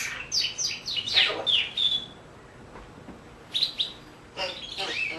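Pet parrot chirping and whistling in quick, short, mostly falling notes, one held briefly, in two bursts with a quieter pause of about a second and a half in the middle.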